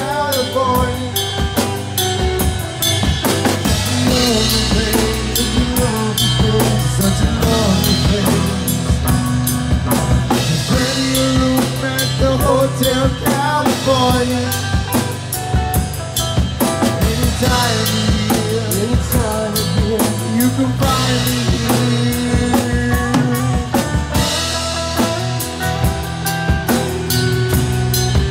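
Live rock band playing loudly: electric guitars over bass guitar and a full drum kit with steady snare and kick drum, the lead guitar bending notes.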